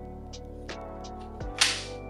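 The magnetically attached 120 mm fan of a Zalman ZET 5 CPU cooler snapping onto the cooler tower with a single sharp clack about one and a half seconds in, over background music.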